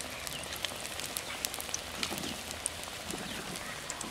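Battered spinach pakora deep-frying in hot oil in a kadhai: a steady sizzle with many short crackling pops.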